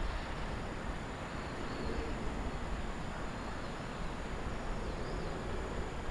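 Steady outdoor background noise, with a few faint high chirps from a bird.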